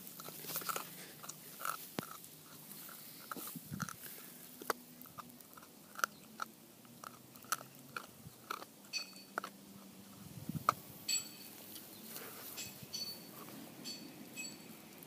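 West Highland White Terrier puppy gnawing a large meat bone: irregular sharp crunches and clicks of teeth on bone, with pauses between bites.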